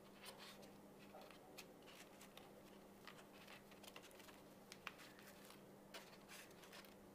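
Faint handling noises: light clicks and rustles as a transparent slide is worked into the slot of a homemade slide projector, over a faint steady hum.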